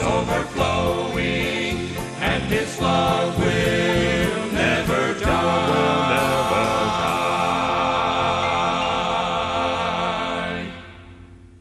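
Gospel song ending: voices singing over a band with drums and cymbals, then a long held final chord that dies away near the end.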